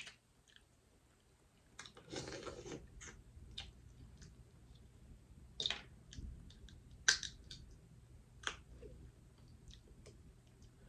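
Faint eating sounds from someone eating seafood: scattered mouth clicks and lip smacks while chewing, with a short stretch of louder smacking about two seconds in.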